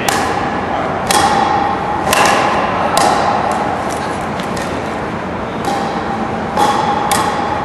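Pickleball paddles striking plastic pickleballs on volley practice: sharp pops roughly once a second at uneven intervals, each with a short echo, over a steady background hum.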